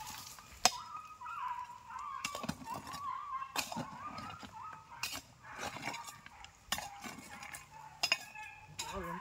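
A string of sharp, hard clinks, roughly one every second or so, with a faint wavering tone running underneath.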